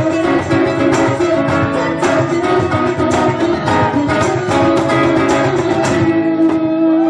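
Live acoustic pop song: an acoustic guitar strumming under group singing, coming to its final bars. The strumming stops about six seconds in, leaving a held closing chord.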